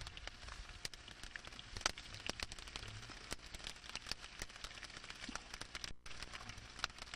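Sliced potatoes frying in oil in a large pan over a wood fire, sizzling with a dense, steady patter of sharp pops and crackles.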